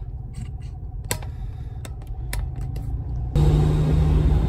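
Car cabin rumble from the engine, with a few light clicks. About three seconds in it cuts to louder driving noise with a steady low hum.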